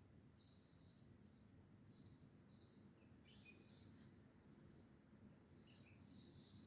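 Near silence: a faint low background rumble with faint, scattered high bird chirps.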